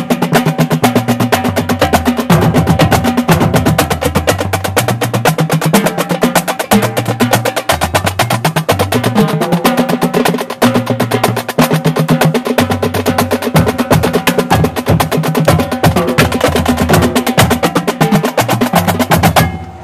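Marching drumline playing a fast cadence: rapid snare and tenor drum strokes over tuned bass drums stepping between pitches. It cuts off sharply near the end.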